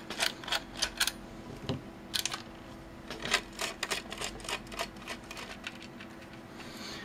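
Small screwdriver turning screws out of a plastic multimeter case: irregular sharp clicks and ticks, some in quick runs, from the tool's tip and the case being handled.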